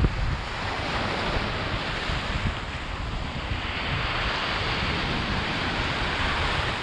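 Sea waves surging, with wind rumbling on the microphone. A wash of surf swells about halfway through and eases near the end.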